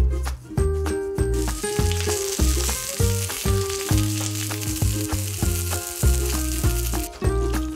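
Pork garlic sausages sizzling as they fry in a pan in their own fat, with no oil added. The sizzle starts about a second and a half in and stops shortly before the end, over background music with a steady beat.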